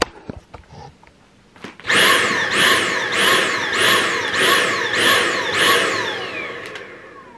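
Dyson cordless handheld vacuum, held straight against the valve of a vacuum storage bag to draw the air out. About two seconds in it starts, then surges on and off about twice a second, each surge falling in pitch, the pulsing a Dyson gives when its airflow is blocked. Near the end it winds down in one long falling whine.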